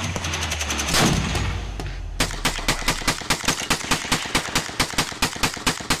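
Music for the first two seconds, with a loud hit about a second in. Then, about two seconds in, a drum-fed semi-automatic shotgun starts firing rapidly, about four shots a second.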